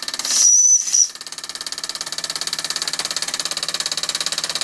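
Mamod SE2 stationary steam engine's steam whistle blowing once, a steady high note of under a second, over the engine's rapid, even exhaust beat as it runs under steam; after the whistle stops the engine carries on running steadily.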